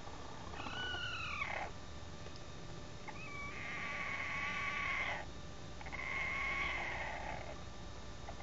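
Chicken making odd, drawn-out, cat-like calls: one short call that rises and falls, then two long held calls.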